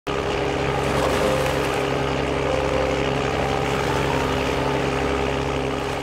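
A passenger ship's engine running at a steady low hum, over the rush of water churning in its wake.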